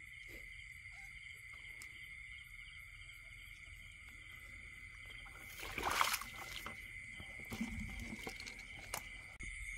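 Steady chorus of night insects, chiefly crickets, with a splash and slosh of shallow water about six seconds in, followed by a few light knocks and smaller water sounds.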